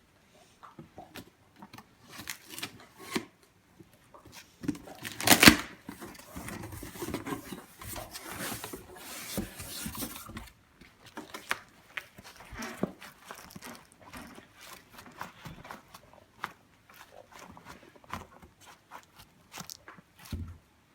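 Packaging being torn and rustled open by hand, with a sharp loud tear about five seconds in, followed by several seconds of steady rustling and then scattered lighter crinkles and taps.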